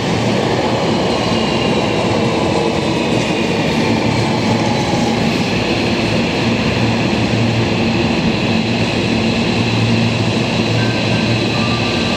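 Hankyu electric train running: a steady rumble with high whining tones that glide slowly in pitch.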